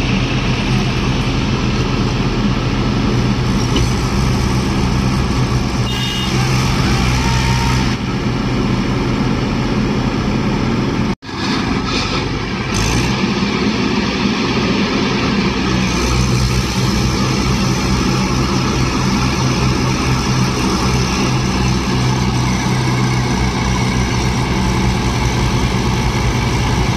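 Several tractor diesel engines running hard together as a chain of Swaraj and Mahindra tractors pulls a stuck, loaded trolley through wet sand. It is a loud, steady low drone that drops out for an instant about eleven seconds in.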